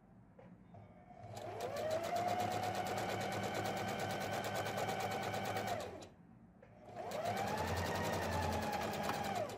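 Domestic electric sewing machine sewing a straight stitch in two runs with a pause of about a second between them. Each run the motor whine climbs as it speeds up, holds steady under rapid needle strokes, then falls as it stops.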